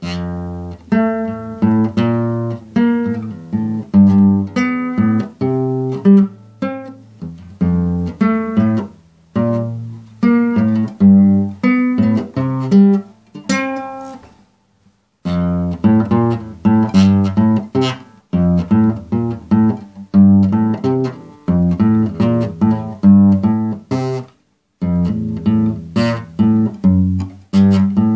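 Acoustic guitar being played: chords struck about twice a second, each ringing out and fading, with a short break about halfway through and another near the end.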